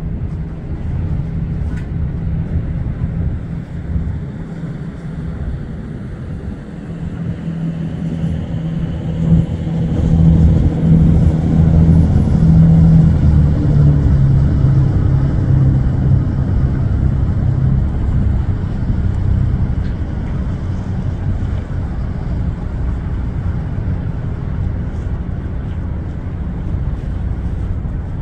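Boat engine droning steadily, with wind on the microphone and water noise; the engine hum swells louder about ten seconds in and eases back after several seconds.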